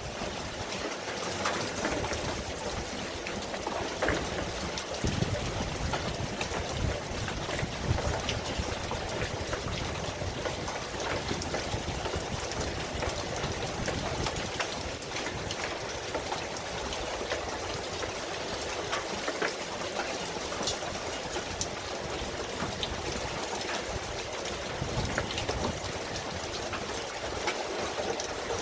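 Steady rain falling, a dense hiss with many individual drops ticking and spattering on surfaces.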